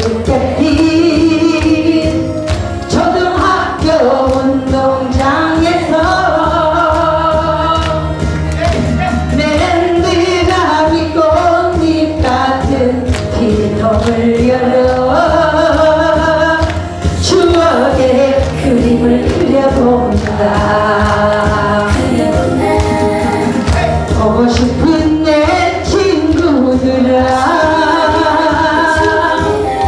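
A song sung over a backing track: a woman's voice carrying the melody, with a group singing along.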